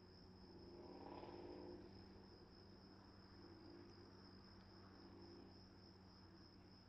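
Faint, steady high-pitched trill of crickets at dusk. A faint, low pitched sound rises briefly about a second in.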